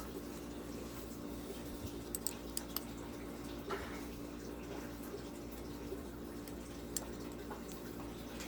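Steady low background hum with a few light clicks and taps scattered through it.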